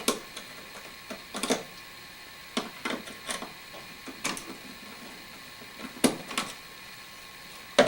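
Scattered light clicks and taps of a screwdriver working a light switch's terminal screws and its wires, coming irregularly every second or so.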